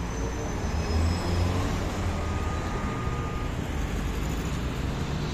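Road traffic on a busy multi-lane city street: cars driving past with a steady low rumble of engines and tyres.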